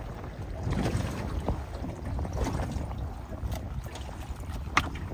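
Low, fluctuating rumble of wind on the microphone in an open boat, with scattered small ticks and one sharp tap near the end from a knife trimming a salmon's fins on a wooden cutting board.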